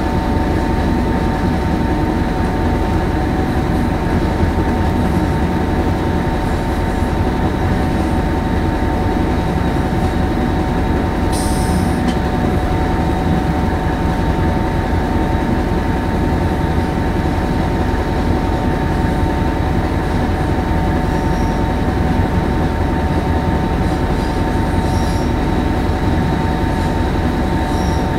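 Hastings diesel-electric multiple unit with its English Electric four-stroke diesel engine running under way, heard from the driving cab: a loud, steady mix of engine, motor and wheel-on-rail noise with a constant hum. A short high squeal comes about eleven seconds in.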